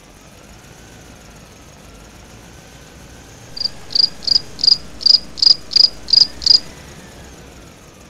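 A cricket chirping: a run of about nine loud, high, short chirps at roughly three a second, starting about three and a half seconds in, over faint background noise.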